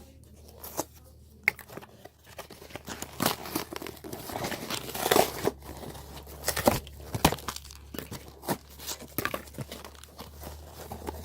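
Plastic toy packaging being torn and crinkled by hand, in irregular crackles and short rips.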